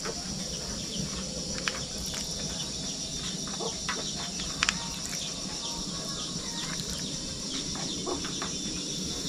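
Rural outdoor ambience: a steady high insect buzz with faint clucks from chickens, and a couple of light knocks.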